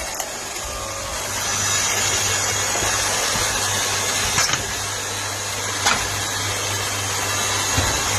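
Firewood splitter's motor running steadily with a constant hum, with a couple of brief sharp clicks about halfway through.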